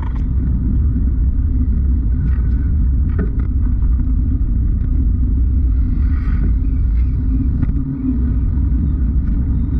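Steady low rumble of wind and road vibration picked up by a bicycle's handlebar-mounted GoPro sealed in its waterproof case, which muffles everything else.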